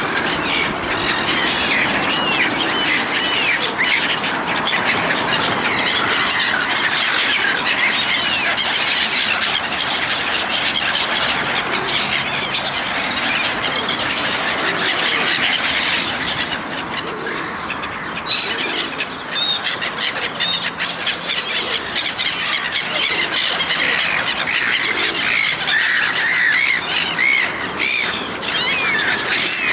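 A flock of gulls calling non-stop, many harsh squawks and short rising-and-falling cries overlapping, as they crowd in to snatch bread being fed by hand.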